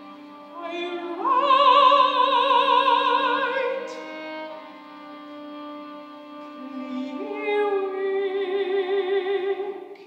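A classical mezzo-soprano sings two long held notes with wide vibrato over sustained low chords from a string quartet. The second phrase is lower than the first. All of the sound stops abruptly just at the end.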